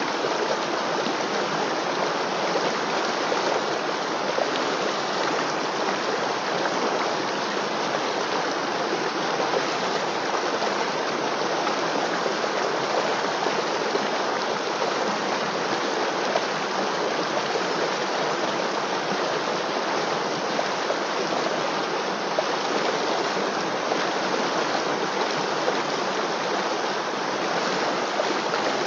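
River water flowing and rushing steadily, an even unbroken wash of noise with no pauses or changes.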